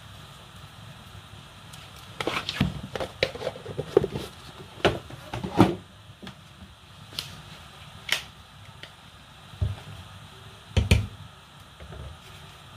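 A metal spoon stirring thick soup in a metal pot, clinking and knocking against the pot's side in a quick run of clicks, then a few single knocks. A steady low hum runs underneath.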